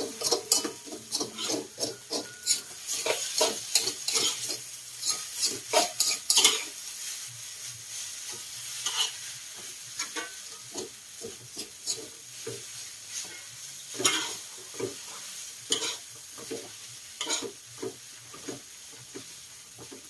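Noodles sizzling in hot steel woks while a spatula scrapes and taps against the wok's metal, in quick, busy strokes for the first six seconds or so, then more sparsely.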